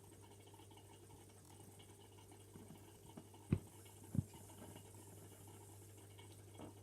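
Quiet room tone with a steady low hum, and two soft thumps a little over half a second apart about halfway through.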